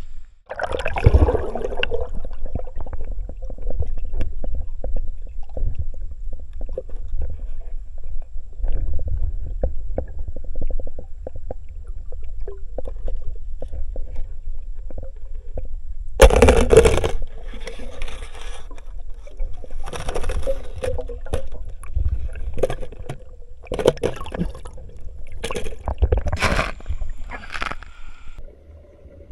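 Water gurgling and sloshing heard from a camera dipped underwater, over a steady low rumble. Louder splashing surges come about a second in and several more times in the second half.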